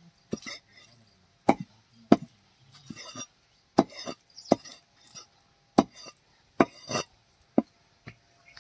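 Large butcher's knife chopping goat liver into cubes on a wooden chopping block: about ten sharp chops, unevenly spaced, each blade stroke knocking on the wood.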